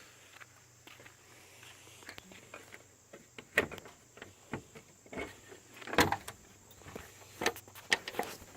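A quiet stretch, then a run of sharp, irregular clicks and knocks, the loudest about three and a half and six seconds in.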